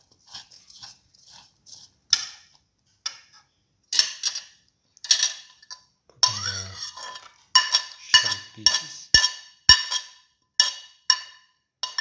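Ceramic spoon clinking and scraping against a ceramic bowl while okra pieces are mixed into chickpea flour. Scattered light clicks at first, then from about halfway a run of sharp ringing clinks, roughly two a second, after a dull thud.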